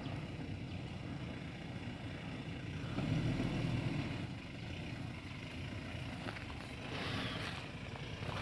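Toyota Hilux 4x4 engine running low as the truck crawls slowly over rutted ground, with a brief rise in revs about three seconds in.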